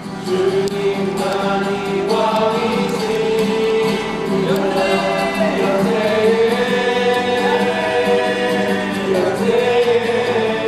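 Worship song sung by a group of voices, holding long notes over music.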